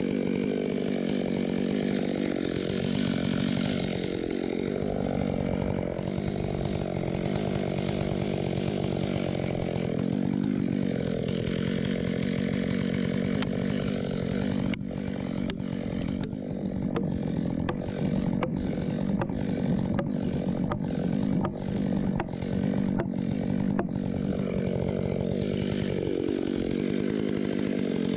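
Stihl MS661 two-stroke chainsaw cutting into the trunk of a white fir, its engine pitch rising and falling under load. About halfway, the saw runs steadily while a felling wedge is driven into the cut with a run of sharp blows, about two a second for some ten seconds; the saw goes back into the cut near the end.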